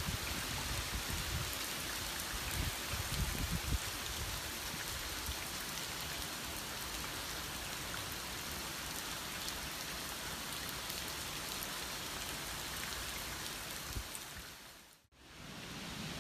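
Heavy typhoon rain falling steadily, with low gusty rumbles of wind on the microphone in the first few seconds. The sound fades out and briefly dips about fifteen seconds in.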